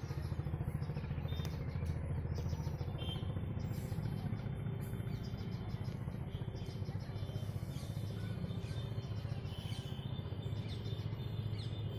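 Birds chirping in short faint calls scattered throughout, over a steady low rumble.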